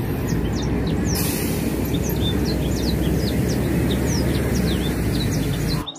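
Street traffic with a Transjakarta city bus running close by: a steady low engine rumble under road noise, cutting off suddenly near the end. Birds chirp over it throughout.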